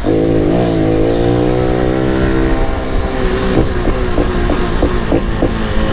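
Honda Pop 110i's single-cylinder engine running through a tin exhaust (escape de lata) while riding, holding a fairly steady note. In the second half short sharp pops break through about three times a second.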